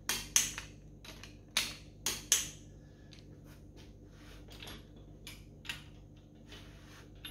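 Click-type torque wrench clicking over as the conrod nuts of a Holden 253 V8 are rechecked at torque: several sharp clicks in the first two and a half seconds. Later come fainter clicks from a wrench on the crankshaft nose as the crank is turned over by hand.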